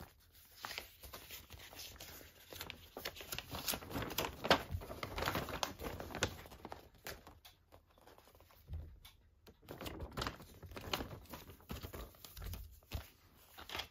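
Folded paper poster being unfolded and handled: irregular paper rustling and crinkling, with a brief lull just past the middle.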